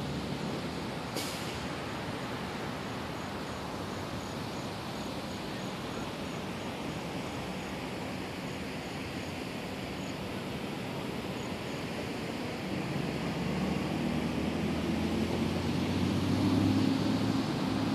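Fountain water splashing steadily, an even wash of noise. In the last few seconds a low engine drone from a passing vehicle rises over it.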